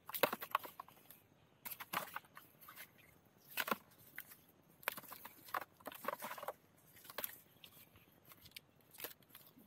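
Freshly cut bamboo shoots being handled and packed into a woven wicker basket: irregular rustles and light knocks of the husked shoots against each other and the basket.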